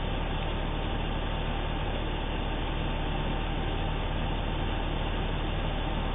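Pickup truck's engine idling, a steady low hum heard from inside the cab, with the air conditioning running.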